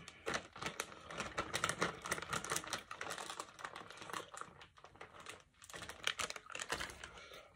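Plastic fishing-lure packaging being handled: a fast, uneven run of small crackles and clicks, with a couple of brief pauses midway.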